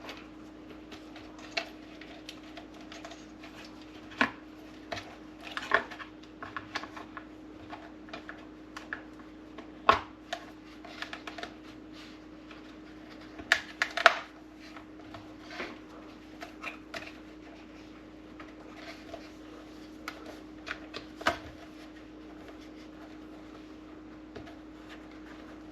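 Irregular clicks, taps and knocks of a plastic housing cover being handled and fitted back onto a coffee maker, with a few sharper snaps about ten and fourteen seconds in. A steady low hum runs underneath.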